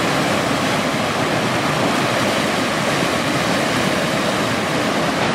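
River rapids: white water pouring over a rock ledge in a steady, even rush.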